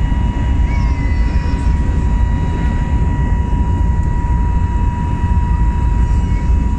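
Steady roar of a jet airliner's turbofan engines and airflow heard from inside the passenger cabin, with a steady high whine holding one pitch above it.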